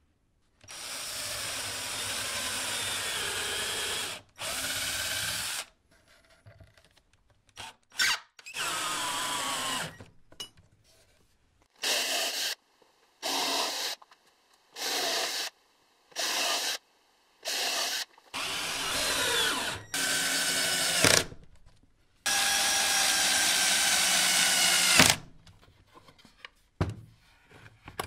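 Power drill working into plywood in bursts: a long run of about three seconds at the start, a quick string of short trigger pulses in the middle, and two longer runs near the end, the motor's pitch wavering as it loads.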